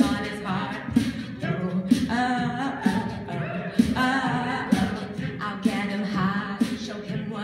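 Mixed-voice a cappella group singing a pop mashup, a lead voice over backing harmonies, with vocal percussion keeping a steady beat.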